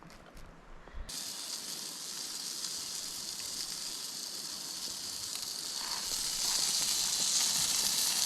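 Food sizzling on a grill: a steady frying hiss that starts suddenly about a second in and grows louder near the end.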